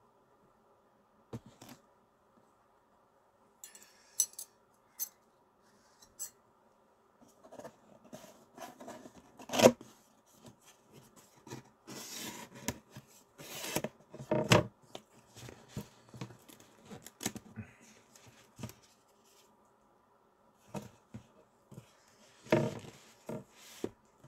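Intermittent handling noises close to the microphone: clicks, scrapes and rustles of cutlery, dishes and packaging being moved around. The loudest come about ten seconds in and again around fourteen seconds, with a short lull a little after the middle.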